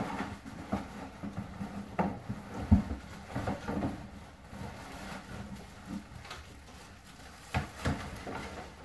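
Handling noise as a stack of plastic-bagged Discraft discs is pulled out of a cardboard shipping box: irregular rustling of plastic bags and cardboard, with scattered knocks and one heavier thump about three seconds in.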